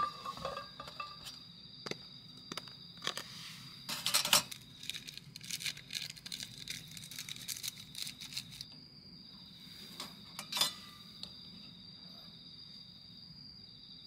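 Stainless-steel camp cookware clinking: a pot lid set down with a ringing clink as it starts, then clinks and rustling as utensils work in the pots, busiest about four seconds in, with one more clink near the eleven-second mark. Crickets chirp steadily in the background.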